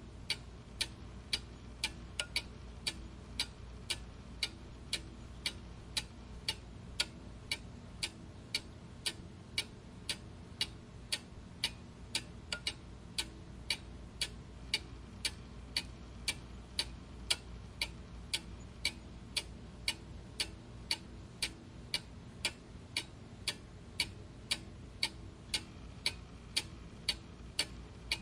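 Clock ticking steadily, about two even ticks a second, over a faint low hum.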